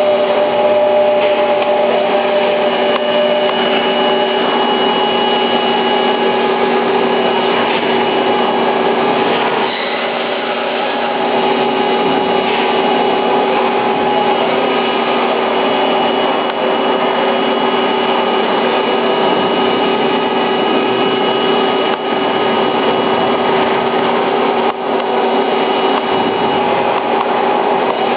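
Johnford SL-500 slant-bed CNC lathe running and cutting metal: a steady machine hum with several constant whining tones, dipping briefly a few times.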